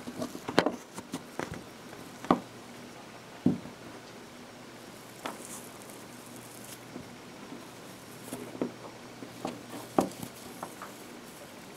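Fingers squeezing and tearing apart lumps of wet paper pulp (paper clay made from shredded paper blended with glue and water), giving irregular soft squishes and crackles, a few of them louder.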